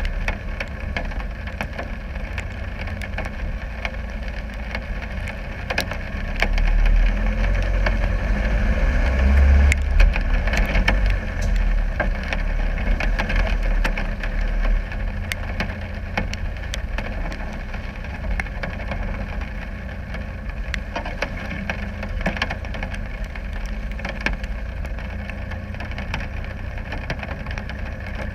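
Land Rover Discovery 300 Tdi's four-cylinder turbodiesel engine running as it drives slowly off-road, heard as a low rumble from a camera on the bonnet, with scattered sharp knocks and clicks. It swells louder from about seven to ten seconds in.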